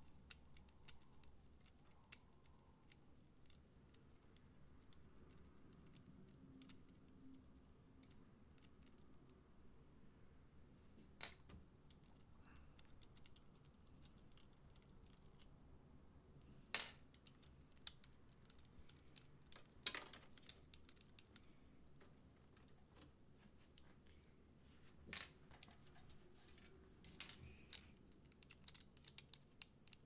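Near silence with faint scattered clicks and scrapes of small metal hex screws being turned out by hand from a graphics card's connector bracket, with a few sharper clicks in the middle.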